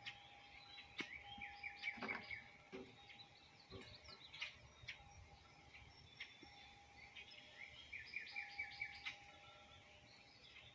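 Faint birdsong: a bird sings two runs of quick, repeated slurred notes among other scattered calls. A few short faint clicks come through.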